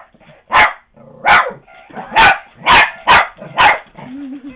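A Lhasa Apso barks six short, loud barks in quick succession at a bouncing Tigger toy, the last ones closest together.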